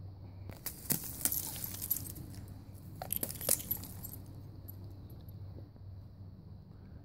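Dog digging hard in loose dirt, paws scraping and soil scattering, with the metal hardware of its collar and leash clip jingling as it shakes. The clatter comes in a busy stretch from just under a second in to about four seconds, then settles to quieter scraping.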